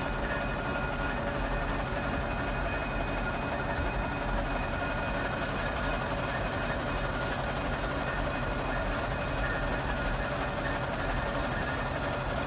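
Railway machinery running steadily: an even mechanical rumble with two faint, steady high whistling tones and no strokes or pauses.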